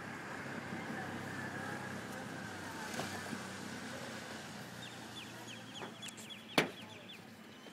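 Steady low hum of an idling vehicle engine under outdoor noise. About five seconds in comes a quick high rattle of ticks lasting just over a second, then a single sharp click.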